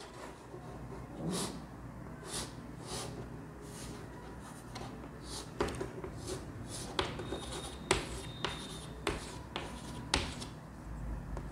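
Chalk on a chalkboard: a string of short strokes and sharp taps, about fifteen at uneven intervals, as lines and dots are drawn.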